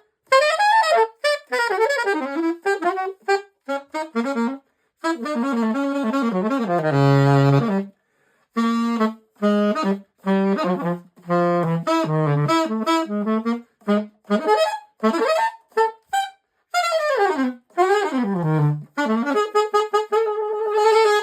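Solo jazz saxophone fitted with a silver-plated VizScrew, played in improvised phrases: quick runs and short detached notes broken by brief pauses, a long low held note, and a wavering held note that stops abruptly at the end.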